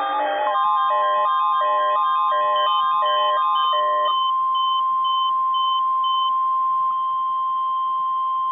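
NOAA Weather Radio's 1050 Hz warning alarm tone, a single steady tone sounded for its routine weekly test. Over the first four seconds a repeating pattern of short beeps plays on top of it, and fainter high beeps carry on a little longer.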